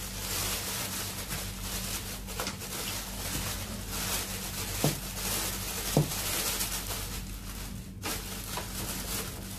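Thin plastic shopping bag rustling and crinkling as it is pulled and tucked over the end of a split-type air conditioner's indoor unit, with two sharper snaps about five and six seconds in. A low steady hum runs underneath.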